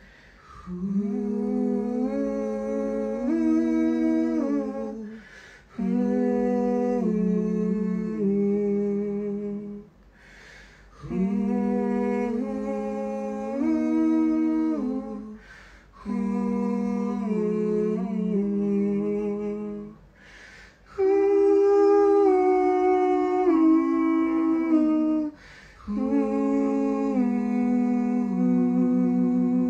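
A man humming a wordless melodic line, practising a vocal harmony part, in about six phrases of roughly four seconds each with a quick breath between them.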